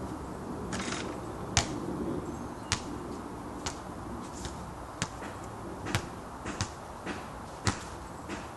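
A basketball swishing through the net, then bouncing sharply on the court about eight times at irregular gaps of roughly a second as it is retrieved and dribbled back.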